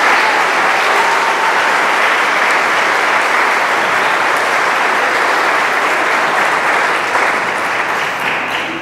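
Audience applauding steadily, dying away right at the end.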